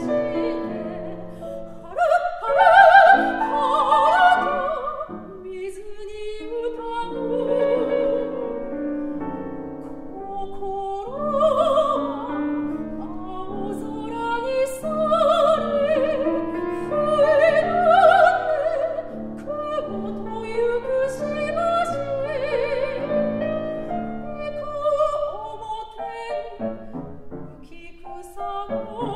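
A classically trained soprano sings an art song with wide vibrato, accompanied by a grand piano.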